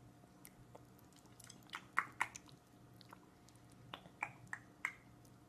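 A baby chewing soft cantaloupe: faint wet mouth smacks and clicks, a few in a cluster about two seconds in and another cluster about four seconds in.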